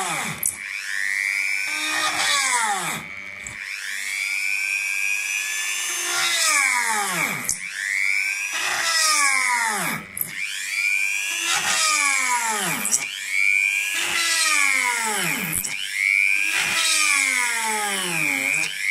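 High-speed rotary tool in a drill stand drilling a row of small holes in a wooden strip. Its whine drops in pitch each time the bit bites into the wood and climbs back as it is lifted out, repeating every two to three seconds.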